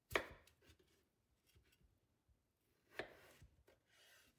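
Kitchen knife cutting through raw peeled potatoes and knocking on a bamboo cutting board: two sharp knocks about three seconds apart, with a few light clicks between them.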